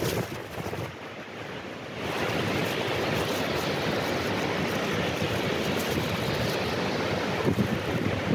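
Pacific Ocean surf breaking on rocks and sea stacks below a cliff, a steady wash of noise, with some wind on the microphone. It is softer for about the first two seconds, then steady.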